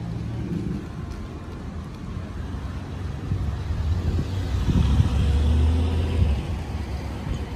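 Street traffic: a motor vehicle's engine rumbles as it passes close by, swelling to its loudest about five seconds in, then fading.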